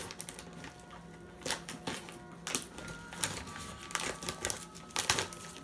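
Plastic treat pouch crinkling with sharp, irregular crackles as it is handled and torn open.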